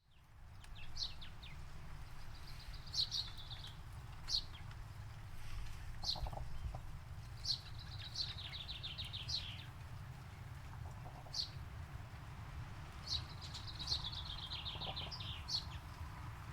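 Songbirds singing: single sharp chirps and several rapid trills of quick repeated notes, over a steady low rumble.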